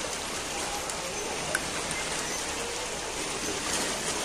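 Steady splashing and lapping of lake water around people wading in the shallows, with faint distant voices.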